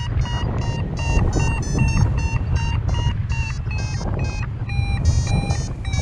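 Paragliding variometer beeping rapidly, about four short beeps a second, its pitch shifting a little: the climb tone, which signals the glider is rising in a thermal. Wind rushes over the microphone underneath.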